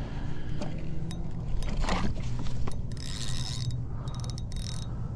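Spinning reel on a fishing rod working against a hooked fish: gear and drag ratcheting, with a burst of rapid clicks about three seconds in.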